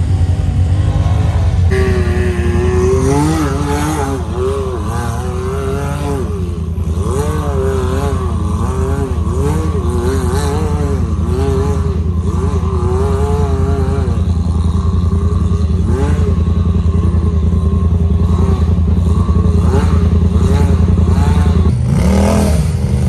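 Side-by-side UTV engine running with a deep steady drone, its pitch wavering up and down with throttle changes. Near the end it rises in a quick rev.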